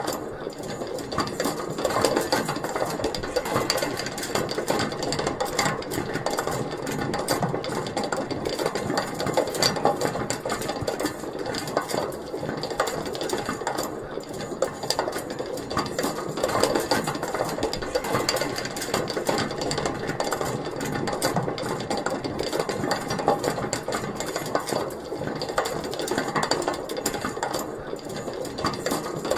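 Metal pulley mechanism with a small wheel spinning, giving a steady, continuous metallic rattle made of many fast clicks.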